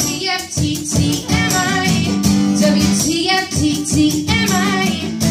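A woman singing the song's refrain over a strummed acoustic guitar, two sung phrases over a steady strumming rhythm.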